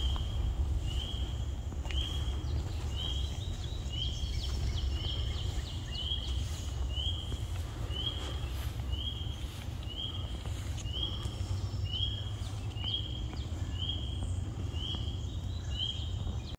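A small animal's short, slightly rising high peep, repeated steadily about once a second, over a steady low rumble.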